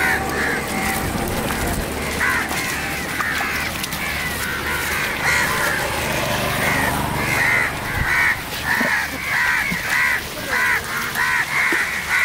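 Crows cawing over and over, a few calls at first and then coming thick and fast through the second half, over a steady low hum.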